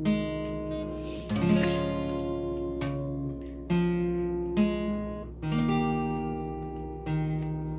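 Acoustic guitar strummed slowly, each chord left to ring and the chord changing every second or two, as the instrumental intro of a hymn.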